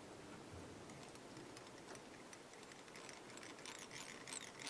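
Faint, scattered small clicks and light rustling from fingers handling the tying thread and hook in a fly-tying vise, a little busier near the end.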